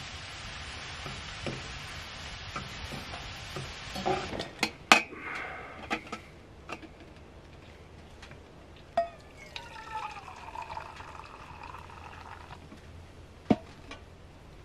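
Meat sizzling steadily in a small cast iron skillet, then sharp metal clinks of a stainless steel kettle and its lid. Water is poured from the kettle into a steel mug for about three seconds, and a single metal clank follows.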